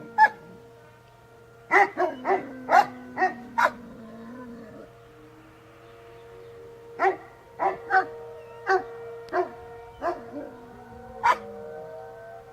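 Newfoundland dog barking in two bursts of about six or seven barks each, a few seconds apart, over a faint steady tone.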